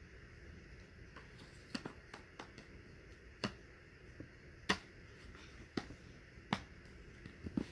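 Cardboard jigsaw puzzle pieces being pressed and fitted together on a cardboard box: about a dozen light, irregular clicks and taps.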